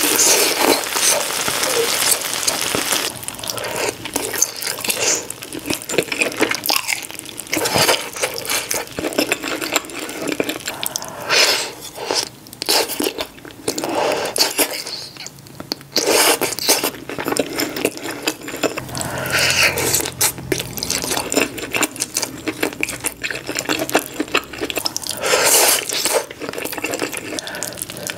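Close-miked eating sounds of a mouthful of cheesy corn: chewing, smacking and sticky mouth clicks in a dense, irregular run.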